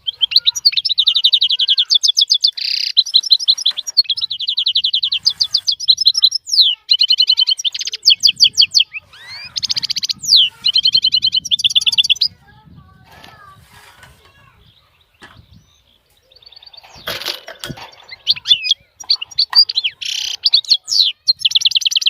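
Caged songbirds singing in fast, high trills and chirps. The song breaks off for a few seconds about twelve seconds in, then resumes with a brief rustle or knock.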